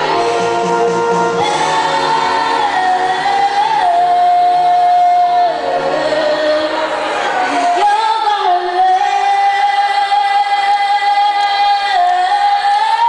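A woman singing solo into a microphone, holding long sustained notes. About halfway through, the lower accompaniment drops away and her voice carries on, holding one long note.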